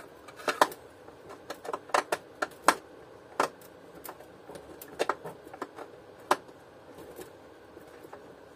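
Irregular clicks and knocks of a plastic vacuum cleaner body being handled and shifted on a metal workbench, about a dozen sharp taps that thin out after the first six seconds or so.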